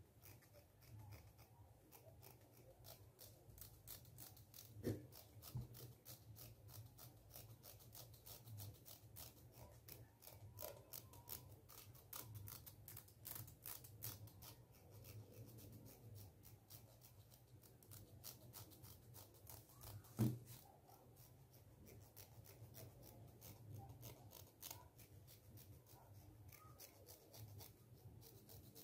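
Fingernail raking along the teeth of a plastic comb held close to a microphone: fast, faint, dense ticking throughout. There is a louder knock about five seconds in and another about twenty seconds in.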